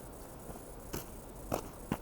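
A few faint, short knocks and clicks as the Yamaha YBR125's rear end is worked to test it. No squeak comes from the swingarm pivot, which has just been greased.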